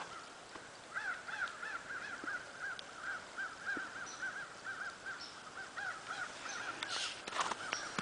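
A bird or other animal calling a long run of short, evenly spaced notes, about three or four a second. A few footsteps near the end.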